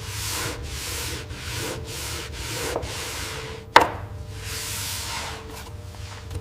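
Wood being rubbed in quick back-and-forth strokes, about two a second, like sanding, over a steady low hum. A single sharp knock comes a little past midway.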